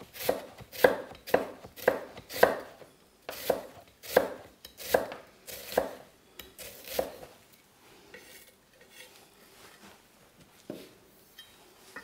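Chef's knife finely slicing a red onion on a wooden chopping board: a steady run of knife knocks on the board, about two a second, that stops about seven seconds in.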